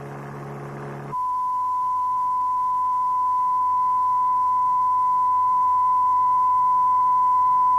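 Steady 1 kHz sine test tone used for ear training in frequency recognition: a single pure beep held for about seven seconds, growing slightly louder. It replaces a low, steady hum of several tones that cuts off about a second in.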